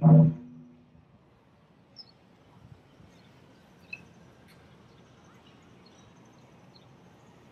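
A last loud stroke on a taiko drum, the closing 'don' of the pattern, ringing out and dying away within about a second. Then quiet open-air background with a few faint, short bird chirps.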